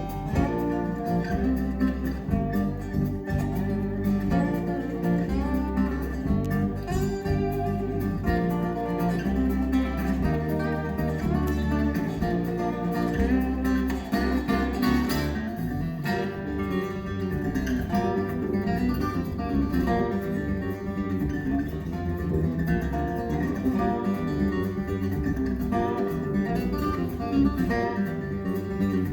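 Acoustic guitar music with a strong bass line, played back over Magnepan LRS planar-magnetic speakers with REL subwoofers.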